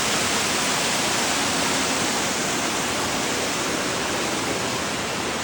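Steady rushing of a waterfall: water crashing down the falls in an even, unbroken roar-like hiss.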